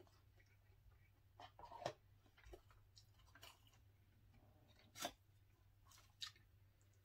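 Faint scattered crinkles and sharp clicks from a plastic sauce packet being squeezed and a fork working in a foam takeout container. The loudest clicks come about two and five seconds in.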